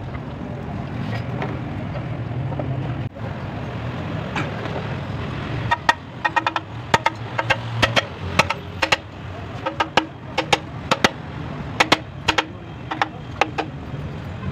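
Ratchet wrench tightening the bolts of an engine's timing chain cover: clusters of sharp metallic ratchet clicks, starting about six seconds in, over a steady low hum.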